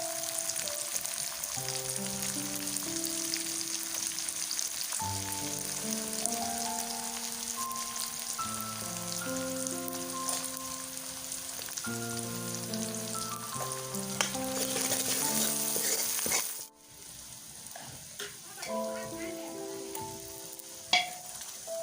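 Food frying in a pan, a steady sizzle, over soft background music of sustained melodic notes. About three-quarters of the way through the sizzle cuts off suddenly, leaving the music and a couple of sharp clicks.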